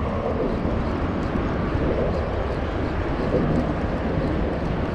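Steady low engine rumble with no breaks or changes.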